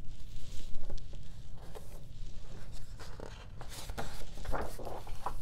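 Page of a large picture book being turned by hand, the paper rustling and sliding in several short strokes, busiest in the second half.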